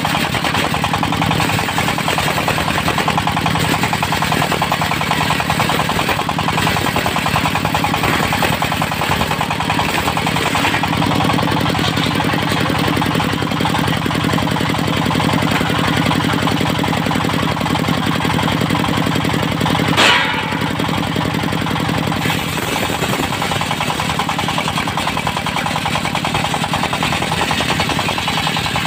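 Mobile circular sawmill's diesel engine running steadily with a rapid knocking beat. There is one sharp crack about two-thirds of the way through.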